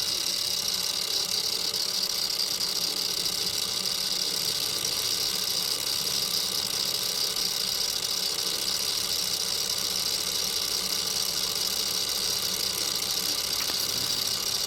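Milling machine running steadily: an even motor and spindle hum with a strong high hiss and a faint steady whine.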